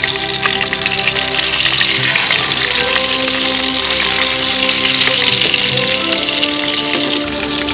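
Food frying in hot oil: a steady sizzle that grows louder in the middle and eases off near the end. Soft background music plays under it.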